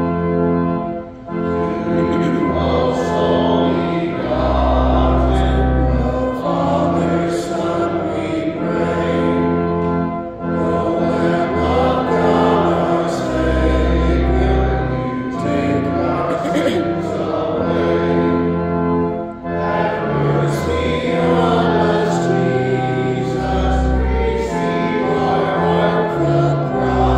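Congregation singing a slow hymn to organ accompaniment. The organ holds long chords over deep bass notes that change every couple of seconds.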